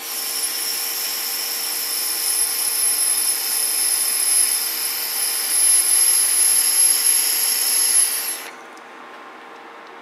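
A steady hiss that starts suddenly, holds for about eight and a half seconds and then cuts off abruptly.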